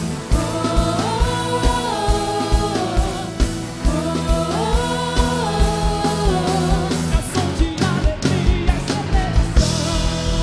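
Gospel worship band playing, with a steady kick-drum beat and a sliding melodic lead line; a busier drum fill comes about eight seconds in.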